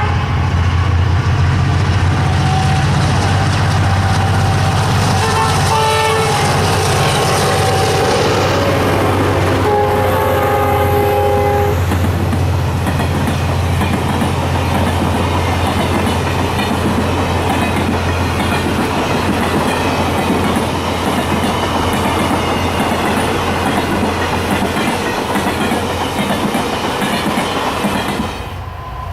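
Diesel locomotives H1 and A78, a Roots-blown and a turbocharged EMD-powered pair, passing under power. The horn sounds a chord in blasts during roughly the first twelve seconds over a steady low engine drone, then the rumble of engines and wheels clicking over rail joints carries on and drops away near the end as the train passes.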